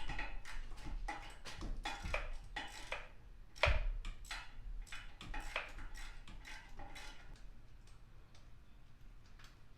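Metal hand tools clicking and clinking at irregular intervals, loudest over the first four seconds and thinning out toward the end.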